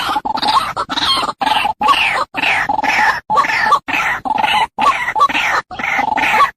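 White-breasted waterhen calling: a continuous run of short, harsh repeated notes in rhythmic phrases of about two a second.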